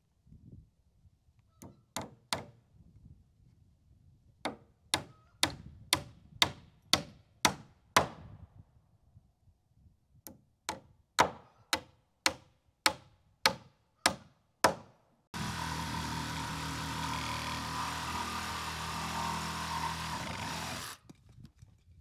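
Hammer driving nails into rough-cut wooden barn siding: two runs of sharp, ringing blows, about two a second, with a short pause between. Near the end a power tool runs steadily for about six seconds.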